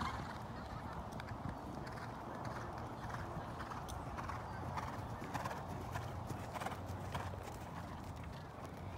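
Hoofbeats of a Thoroughbred horse moving around the show ring: soft, irregular thuds against a steady low background hum.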